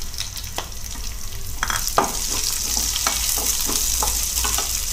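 Sliced onions frying in hot oil in a non-stick kadai, the sizzle growing louder about a second and a half in. A wooden spatula stirs and scrapes them against the pan in quick strokes, about three a second.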